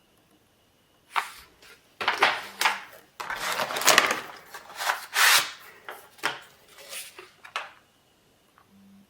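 Hard plastic packaging being handled: boxes and small pots of gel polish rubbing, sliding and knocking against each other in an irregular run of scrapes and clacks, loudest midway.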